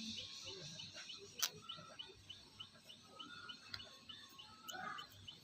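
A bird chirping over and over, about four short high chirps a second, with one sharp click about a second and a half in.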